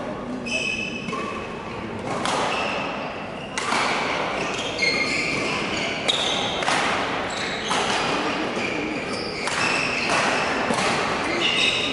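Badminton rally: rackets striking the shuttlecock about once a second, each hit echoing through a large sports hall, with short shoe squeaks on the court floor between hits.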